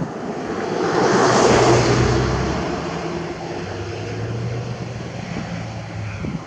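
A motor vehicle passing by. Its noise swells to a peak about a second and a half in, then fades, leaving a low engine hum.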